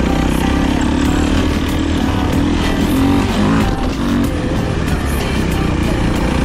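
450cc four-stroke dirt bike engine running under load, its pitch rising and falling as the throttle is worked.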